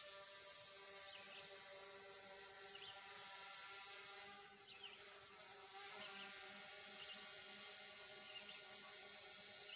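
Faint steady hum of several tones, with short high chirps about once a second.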